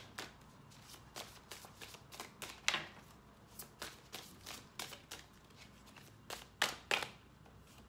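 A tarot deck being shuffled by hand: cards slapping and flicking against each other in an irregular run of light snaps, with a sharper snap a little under three seconds in and two more toward the end.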